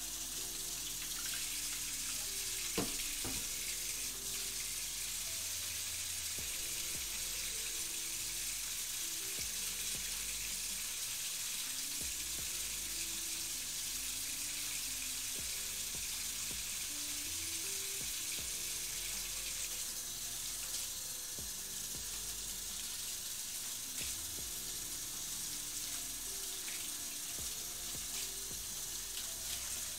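Kitchen faucet running steadily into a sink as a zucchini is rinsed under the stream.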